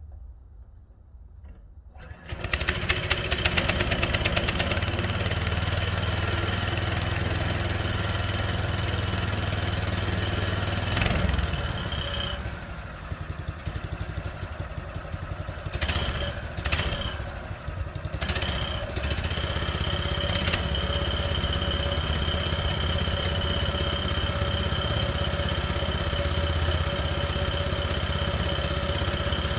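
Gasoline engine of a Central Machinery (Harbor Freight) portable band sawmill starting about two seconds in and then running steadily with a high whine. Partway through, the sound drops for several seconds with a few sharp knocks, then the engine runs steady again.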